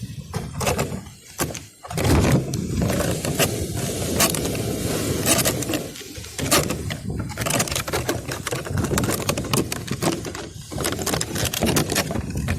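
Wind buffeting the microphone: a rough rumble that rises and falls, crossed by frequent sharp crackles.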